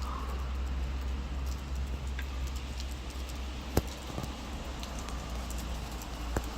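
Rain falling, with scattered drops ticking close by over a steady low rumble. One sharp knock about four seconds in.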